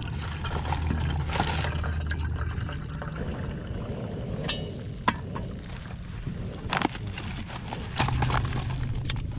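Water poured from a stainless steel flask into an aluminium mess tin. In the second half come a few sharp clicks and knocks as the tin's lid goes on and the flask is set down.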